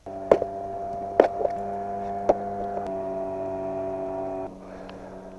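A steady mechanical hum that starts suddenly, with three sharp clicks over it in the first two and a half seconds; it drops to a lower level near the end.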